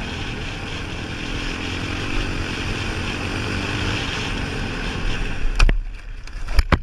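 Steady wind rush over a helmet-mounted camera's microphone with a quad bike's engine running underneath at speed. A little past five seconds the steady noise drops away and a few sharp knocks and thumps follow as the quad goes down in a crash.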